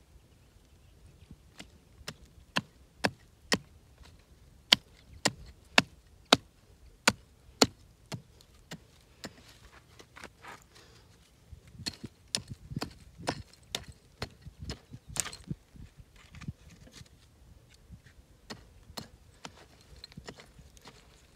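Hand hoe chopping into dry, stony soil to open planting holes: a run of sharp strikes about two a second, then quicker, irregular knocks.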